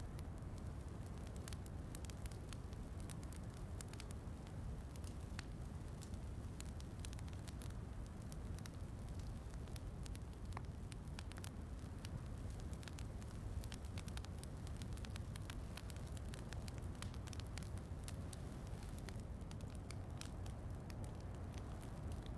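Wood fire crackling, with many small irregular pops, over a steady low rush of soft rain.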